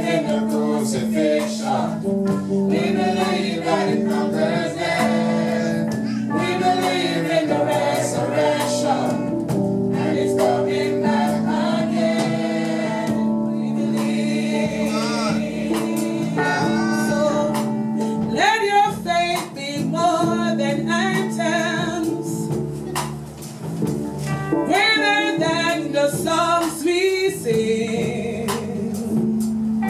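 Gospel worship song sung by a group of voices with instrumental accompaniment.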